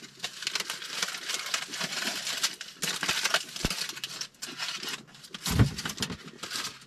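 Aluminium foil crinkling and crackling as a foil-wrapped breakfast burrito is unwrapped by hand, with a single soft thump about five and a half seconds in.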